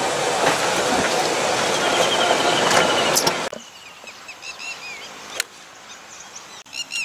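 A loud, steady rushing noise cuts off suddenly about three and a half seconds in. After it, birds chirp faintly and repeatedly, with a single sharp click about five seconds in.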